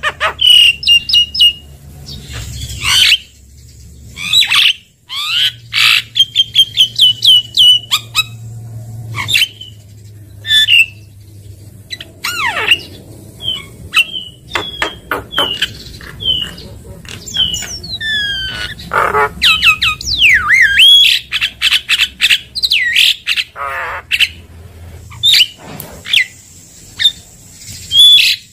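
Javan myna (jalak kebo) singing a fast, varied song: loud squawks, whistled notes that slide up and down, and quick rattling chatter, with short pauses between phrases.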